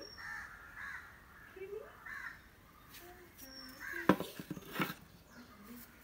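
Crows cawing repeatedly with short, harsh calls. About four seconds in, a brief cluster of sharp knocks, the loudest sound.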